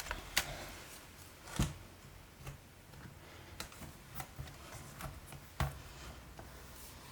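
Scattered light clicks and taps of laptop parts and small tools being handled, with two louder knocks, one under two seconds in and one near the end.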